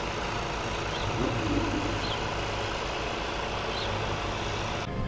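Brabus-tuned Mercedes-AMG GT's 4.0-litre biturbo V8 idling steadily through its quad exhaust tips.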